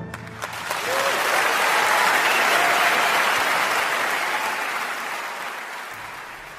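Audience applauding, swelling over the first couple of seconds and then slowly fading away.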